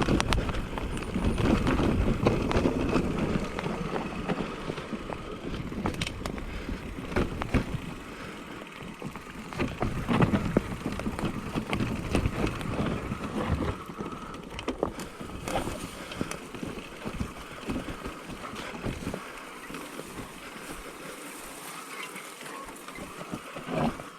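Specialized Turbo Levo e-mountain bike on a rough downhill trail: tyres running over dirt and rocks under wind on the microphone, with frequent sharp knocks and rattles from the bike. Heavier rumbling in the first few seconds.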